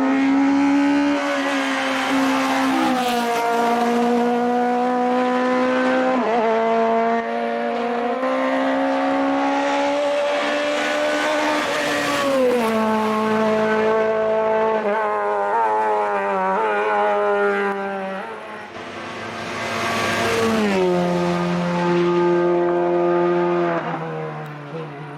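Hillclimb race car engine at high revs under hard acceleration, its pitch climbing and then dropping sharply at several upshifts, fading near the end.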